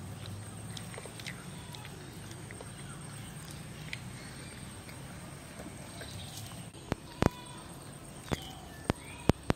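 Outdoor village ambience: a low steady hum with faint short bird chirps over it. About seven seconds in, a handful of sharp, loud clicks.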